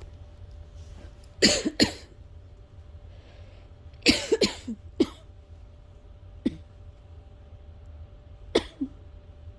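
Asthmatic coughing fit: a person coughs in short, harsh bursts, a double cough about a second and a half in, a quick cluster around four seconds, then single coughs at about five, six and a half and eight and a half seconds.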